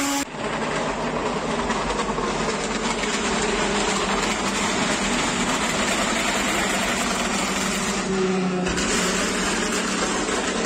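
GT1 race cars running on the wet circuit, heard from the grandstand through a phone microphone as a steady wash of engine noise. The sound changes abruptly about a third of a second in and again around eight seconds in.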